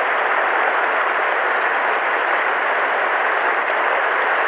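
Mountain stream rushing over rocks in white-water rapids close to the microphone: a steady, even rush of water.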